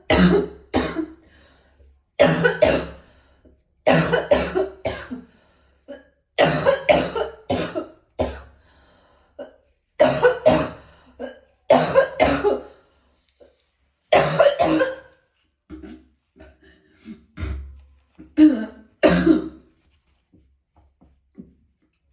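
A person coughing hard in repeated fits, each a quick run of two or three coughs, coming about every two seconds. Near the end come a couple of quieter fits and two last loud ones, and then it dies away.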